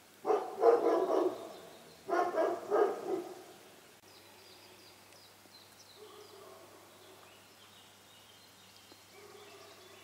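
Dove cooing loudly: two short phrases of several low notes within the first three seconds. After about four seconds, fainter high songbird song with occasional faint low cooing.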